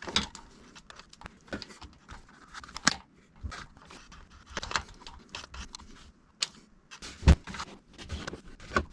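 Scattered clicks and knocks of a socket and wrench being handled on the small bolts of an oil filter cover, with a sharp knock about seven seconds in.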